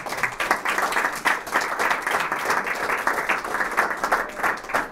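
Audience applauding: many hands clapping together in a steady patter.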